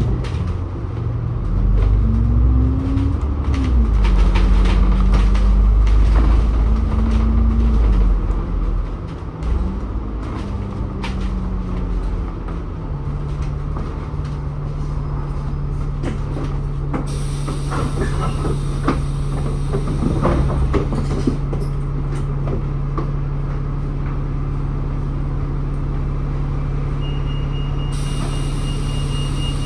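Bus engine heard from inside the cabin, rising and falling in pitch through gear changes for the first several seconds, then easing off and settling into a steady idle as the bus stands. A thin high tone sounds near the end.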